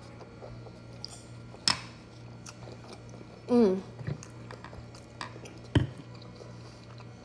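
A person chewing a soup dumpling with wet mouth clicks and smacks, with a short hum from the eater about halfway through.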